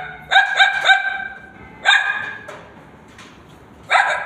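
A girl imitating a dog barking with her voice: a quick run of three barks, one more about two seconds in, and another near the end.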